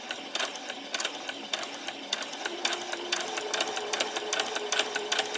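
Electric domestic sewing machine stitching a seam through lightweight fabric: the motor hums under a rapid, regular clicking of the needle. It speeds up a little about three seconds in.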